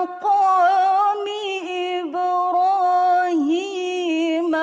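A woman's solo Quran recitation in melodic tarannum style. She holds long, ornamented notes that waver in pitch, with short breaks for new syllables about two and three and a half seconds in.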